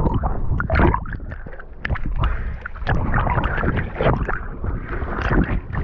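Water splashing and gurgling in irregular surges, from choppy sea moving close to the microphone.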